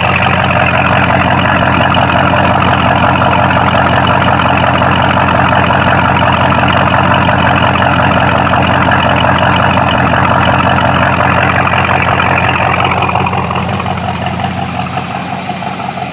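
Freshly rebuilt 1983 Ford 351 Cleveland V8 running steadily, loud, easing off a little near the end.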